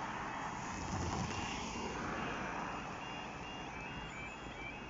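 Level crossing warning alarm starting up as the amber road light comes on: a high, evenly repeating electronic beep from a little over a second in, joined near the end by a warbling two-tone yodel, over steady background road noise.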